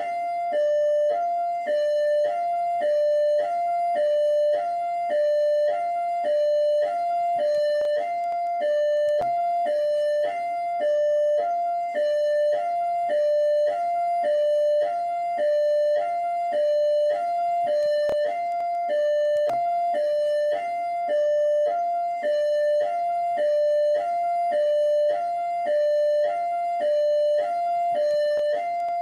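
Rio de Janeiro Military Police (PMERJ) hi-lo siren: two tones, one high and one low, alternating evenly about every half second and repeating steadily.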